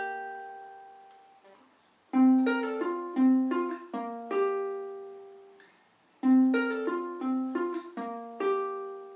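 Ukulele strung with a low G, fingerpicked: a note rings and fades, then the same short phrase of plucked notes is played twice, the notes left to ring out between.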